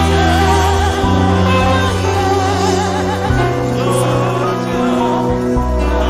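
Gospel music: a woman's lead vocal, sung with a wavering vibrato, over sustained bass notes that change about one second and three seconds in.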